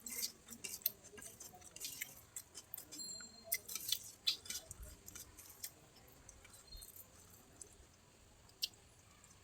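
Close-miked chewing and wet mouth sounds of someone eating a rice meal: many short, irregular clicks and smacks, thinning out after about five seconds.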